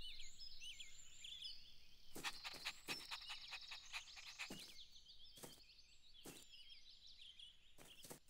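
Faint birdsong: many quick, high chirps, with a few short soft taps mixed in, most of them about two to three seconds in.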